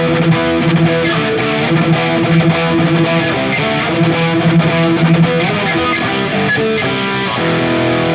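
Electric guitar played through a digital amp-modeling unit on a high-gain distorted preset, a continuous riff of chords and notes.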